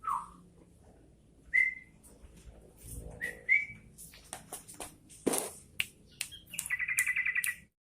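Bulbul calling: a few short whistled notes spaced out over the first few seconds, then a rapid chattering trill of quickly repeated notes near the end. Light clicks and taps are scattered between the calls.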